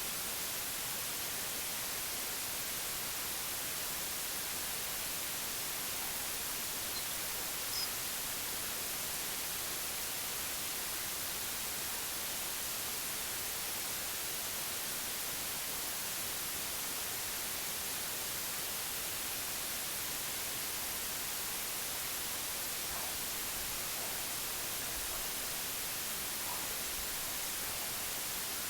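Steady white noise hiss, even and unchanging, heaviest in the treble. There is one brief faint chirp about eight seconds in.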